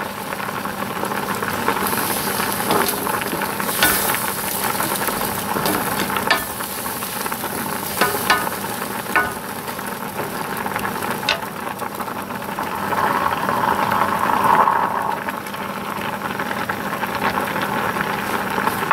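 Milk-and-onion cream sauce bubbling and sizzling in a cast iron skillet as pasta water is poured in and stirred with a wooden spoon. The spoon knocks against the pan several times in the first half.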